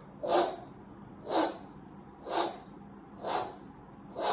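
Recorded harsh heart murmur: five short whooshes, one with each heartbeat, about a second apart. A harsh murmur is the kind that aortic or pulmonary stenosis makes.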